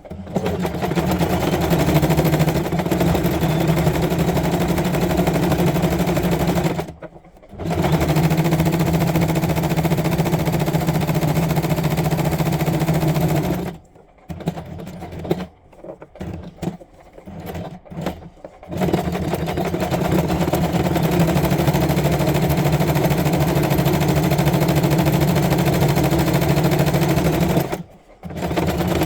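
Janome domestic sewing machine running steadily as it sews a zigzag stitch. It stops briefly about a quarter of the way in, runs in several short stop-start bursts in the middle, then runs steadily again with a brief stop near the end.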